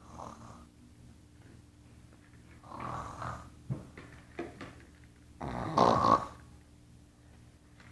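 A person fake-snoring: three snores, roughly one every two and a half to three seconds, the third the loudest, with a few small clicks between them.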